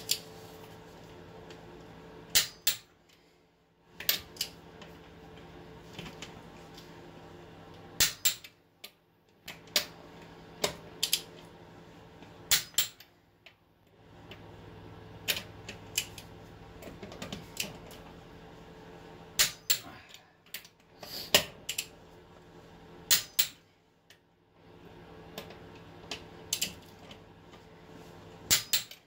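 Click-type torque wrench on car lug nuts, snapping with sharp clicks as each nut reaches the set 110 foot-pounds. The clicks come singly or in twos and threes, a second or so apart, with short pauses as the socket moves from nut to nut, over a steady low hum.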